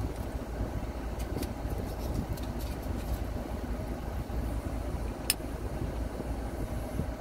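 Steady low rumble of a car idling, heard from inside the cabin, with a few light clicks from fingers working at a glass bottle's crown cap and one sharper click about five seconds in.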